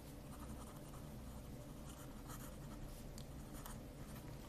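Faint scratching of a pen tip on paper as a word is handwritten, with a few light ticks as the strokes start and lift.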